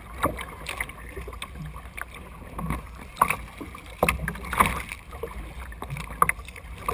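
Water splashing and slapping around a kayak as it is paddled through choppy waves: irregular sharp splashes every half second to a second, over a steady low wind rumble on the microphone.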